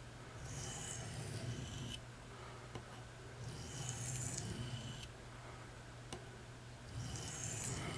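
Steel blade of a Buck 389 canoe pocketknife drawn slowly across a wet combination oilstone: three long, scratchy strokes of about a second and a half each, with short pauses between.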